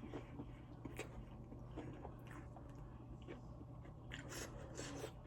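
A person chewing and biting crispy fried chicken close to the microphone, with scattered small crunches and mouth clicks.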